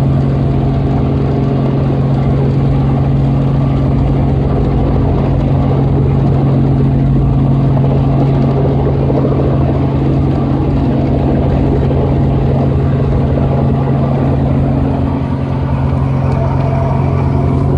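A light helicopter's engine and rotor drone steadily, heard from inside the cabin. The level dips briefly about fifteen seconds in.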